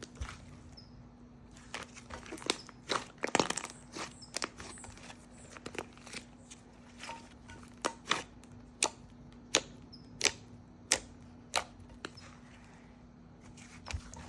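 Thick, glossy slime mixed with soft clay being squished and poked by hand, giving sharp, irregular clicks and pops about once or twice a second. A faint steady hum sits underneath.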